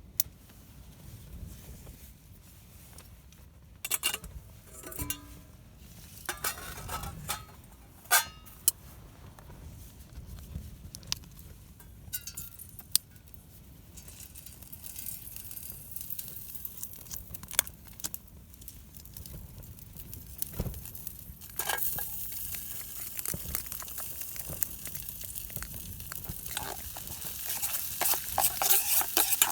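Camp cooking in a pot: scattered clinks and knocks of the pot, utensils and food packets, then from a little past two-thirds of the way through a hiss that grows louder toward the end as the stir fry starts to sizzle.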